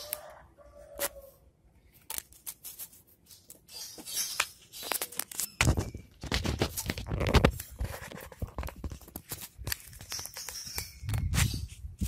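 Scratching, scraping and clicking as a kitten paws and bats at a stick on a concrete step, with heavier rustling thumps about halfway through and again near the end.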